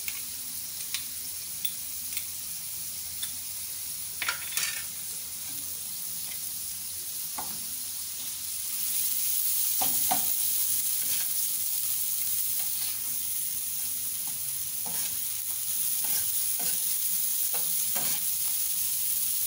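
Minced beef frying on a tawa: a steady sizzle that grows louder about eight seconds in, with a spatula scraping and knocking against the pan every few seconds as the meat is stirred.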